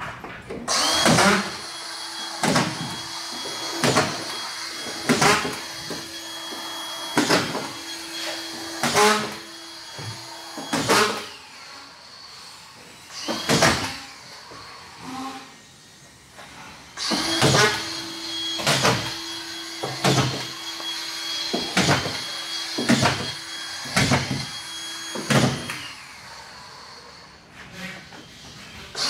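Cordless drywall screw gun with its motor running steadily while screws are driven into plasterboard one after another, about one a second, each ending in a sharp snap. The motor stops for a few seconds midway, then a second run of screws follows.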